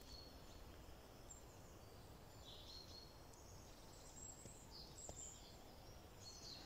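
Near silence, with faint, scattered high bird chirps and short trills.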